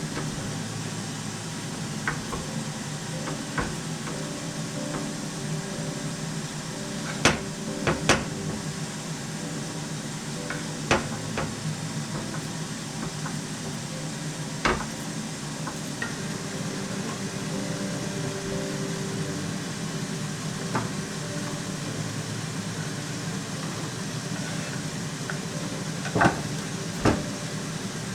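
Scattered knocks and clicks of kitchen utensils and dishes being handled, irregular and a few seconds apart, over a steady machine hum.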